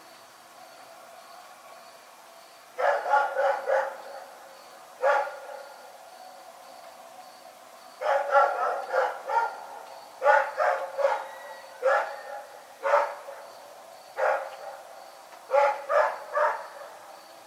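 A dog barking in bouts: quick runs of three to five barks alternating with single barks, a second or two of quiet between bouts.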